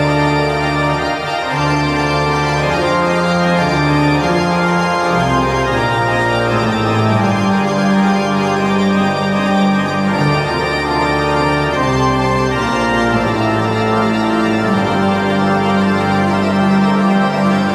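Pipe organ playing full, held chords that change every second or two over strong low bass notes.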